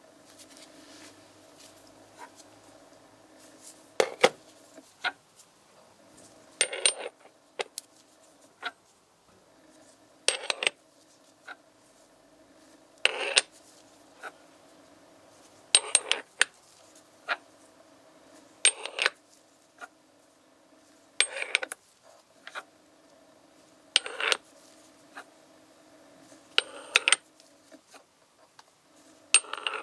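Metal weight discs on an oil-film tester's lever arm clinking against each other, one sharp clink with a high metallic ring about every two and a half to three seconds, as the weights are lifted off one at a time. A faint steady hum runs underneath.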